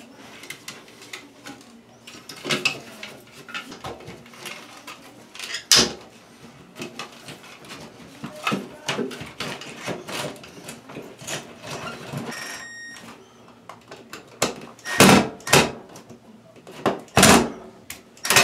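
A blue plastic ceiling electrical box being worked into a hole in the drywall by hand: scattered clicks, knocks and scraping of plastic against the ceiling, with a few loud knocks near the end.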